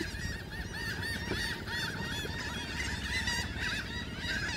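A flock of seabirds calling: many short rising-and-falling calls overlapping in a steady chatter.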